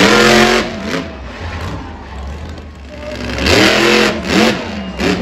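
Monster truck engine revving in repeated throttle bursts, the pitch climbing and falling, loudest right at the start and again from about three and a half to four and a half seconds in, as the truck is lifted onto its rear wheels.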